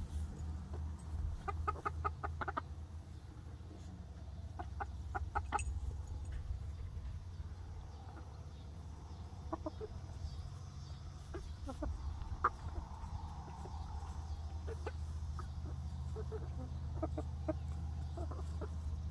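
A flock of young laying hens clucking softly in scattered runs of short, quick notes while they forage, over a steady low rumble.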